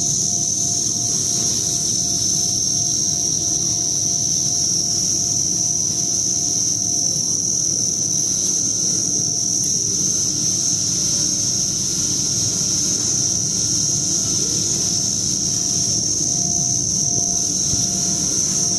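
Bearing-factory production machine running steadily, its spiral screw turning under a stream of coolant: a constant high-pitched whine over a steady rumble, with a faint tone pulsing about two to three times a second.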